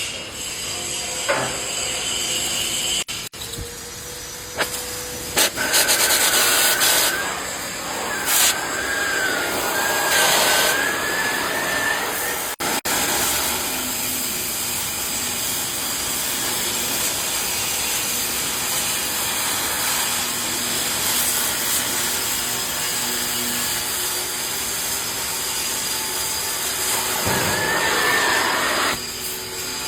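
Oxy-fuel gas cutting torch hissing steadily as it cuts through a steel I-beam, with louder rushes of hiss a few times and a wavering whistle over the top for several seconds.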